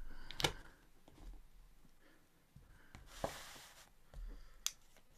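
A sheet of paper being slid across a tabletop by hand, a brief rustling scrape about three seconds in, with a light tap or click shortly before and after.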